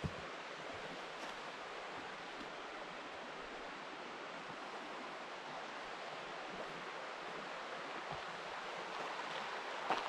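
River rapids rushing steadily, an even wash of moving water.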